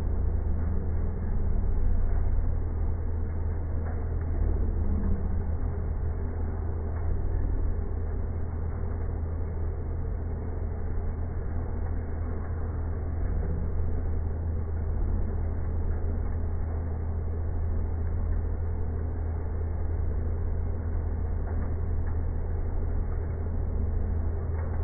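Lathe turning a steel bar with a WIDIA WNMG carbide insert: a steady low hum from the machine with a rough, even cutting noise over it, dull and with no high sound in it.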